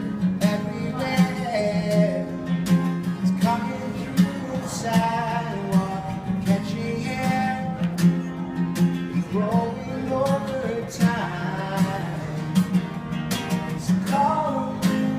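Busker's acoustic guitar strummed in a steady rhythm, with a man's voice singing a wordless melody over it at times.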